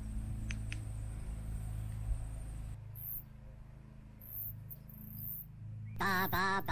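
A low steady rumble with a couple of faint clicks that drops away about three seconds in, leaving a quieter stretch with a few brief very high squeaks. Near the end, a high-pitched cartoon Minion voice clip starts, loud and sing-song.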